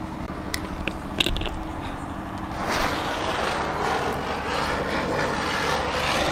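Small Standard-brand ground spinner firework (chakri) lit: a few sharp clicks, then a little under halfway in a steady rushing hiss as it spins and sprays sparks.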